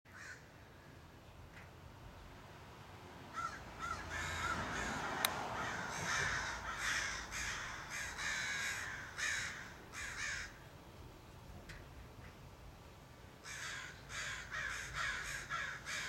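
A group of American crows squabbling, their caws coming fast and overlapping. The calling starts a few seconds in, dies away for a few seconds, then starts up again.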